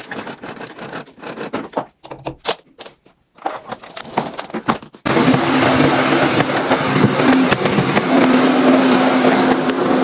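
Clatter and scraping of household items being handled. About halfway through, a vacuum cleaner switches on abruptly and runs steadily with a constant motor hum.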